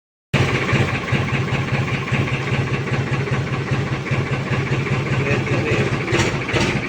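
Farmtrac tractor's diesel engine running steadily at idle through a newly fitted upright exhaust pipe, with a fast, even exhaust beat. A few sharp clicks come near the end.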